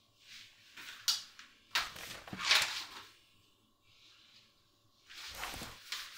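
Sheets of paper rustling as they are handled on a table, in several short bursts with a sharp tap about a second in; the loudest rustle comes about two and a half seconds in, another near the end.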